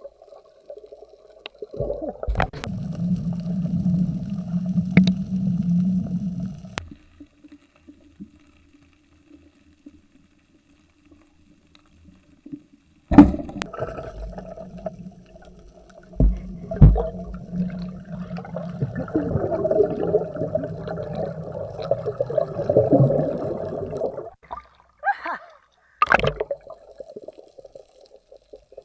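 Muffled underwater gurgling and bubbling of water around a diver, in two long stretches with quieter gaps between, broken by a few sharp knocks.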